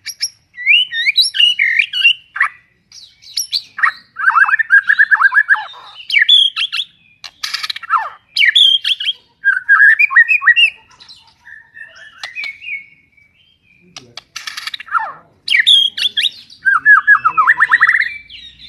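White-rumped shama with pied (blorok) plumage singing a loud, varied song: clear whistled phrases, fast trills and a few harsh notes, with short pauses between phrases.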